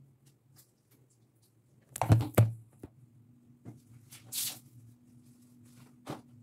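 Handling noises in a small tiled room: two loud sharp knocks close together about two seconds in, a brief swish a little later, and another knock near the end, over a steady low hum.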